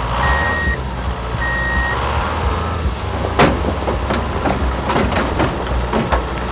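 RC truck running with a steady low engine rumble and a reversing beeper sounding twice. About three and a half seconds in there is a sharp clack, followed by scattered clicks and clatter.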